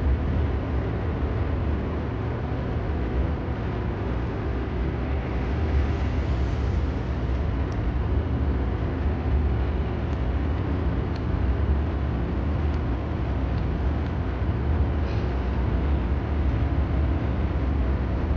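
Steady low rumble of restaurant background noise, with a few faint clicks scattered through.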